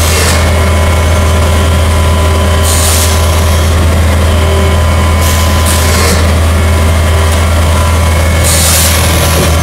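Pulp moulding egg tray forming machine running with a steady low hum, broken by three short hisses of air about every three seconds as the forming cycle repeats.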